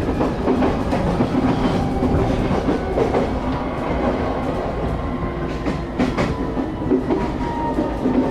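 Inside the cabin of a moving local train: a steady rumble from the running gear, with irregular clicks and knocks of the wheels over the rails and a faint thin whine in the second half.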